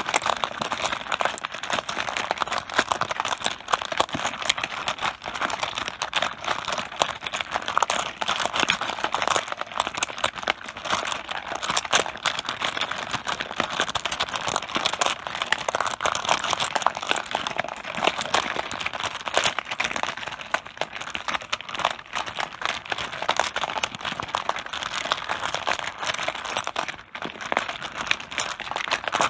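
Mahjong tiles being shuffled on a tabletop: a dense, continuous clatter of tiles clacking against one another.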